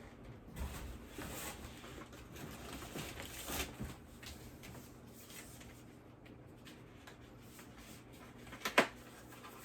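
Faint rustling and handling of packaging and small objects, with a few light knocks and a sharp click near the end.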